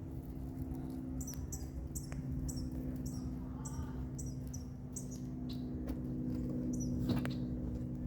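A bird repeating a short high chirp about twice a second for several seconds, over the occasional crackling snap of a campfire, one louder pop near the end, and a steady low hum underneath.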